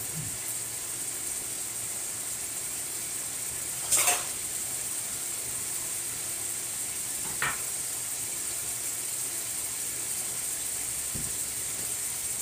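Chicken pieces cooking in tomato sauce in a large pot, giving a steady sizzling hiss. Two short knocks cut in, about four seconds in and again a few seconds later.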